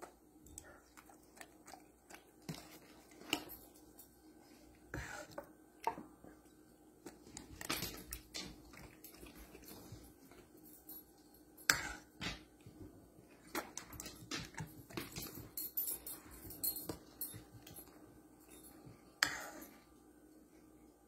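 A metal fork clinking and scraping against a dish, with a golden retriever chewing food taken off the fork. The sound comes as scattered short clicks and knocks over a faint steady hum.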